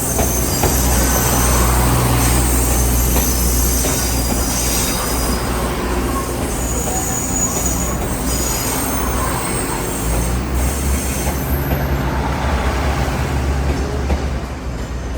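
A passenger train on the Pingxi Line passing close by, running with a loud, steady low rumble and high-pitched wheel squeal, fading away at the very end.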